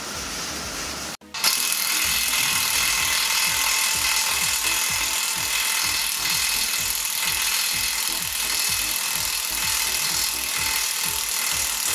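Cordless ratchet running steadily with a fast, even pulse as it backs out a 21 mm front brake caliper mounting bolt. It starts suddenly about a second in.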